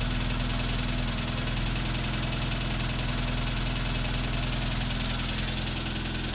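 ZAZ Tavria's MeMZ-245 four-cylinder engine idling evenly with a steady knock, which the owner suspects is the piston pin of the fourth cylinder knocking in its piston bosses.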